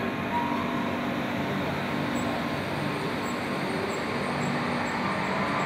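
Metro train running: a steady rumbling noise, with a rising whine starting near the end as it picks up speed.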